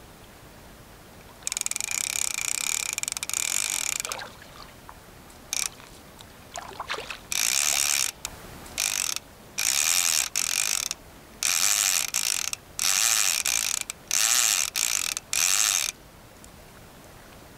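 Fishing reel ratcheting in stop-start runs: one longer run of a couple of seconds, then a string of shorter runs with brief pauses between them.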